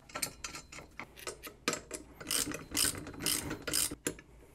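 A hand socket ratchet clicking in short bursts of quick strokes as it turns a bolt, loudest about halfway through and easing off near the end.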